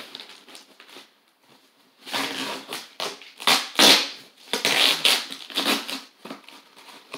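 Packing tape on a cardboard shipping box being slit and ripped open, with the cardboard tearing: a run of irregular rasping tears that starts about two seconds in and is loudest about four seconds in.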